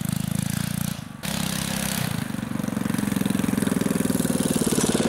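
Coleman B200R mini bike's single-cylinder four-stroke engine with a header pipe running as the bike rides toward the camera, getting louder near the end. A brief drop in the sound comes about a second in.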